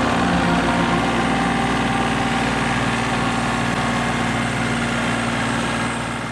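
Yanmar tractor's diesel engine running steadily at idle, fading out near the end.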